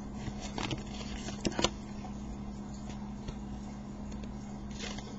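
Trading cards being handled and moved from one to the next: a few short clicks, the sharpest two close together about a second and a half in, over a steady low room hum.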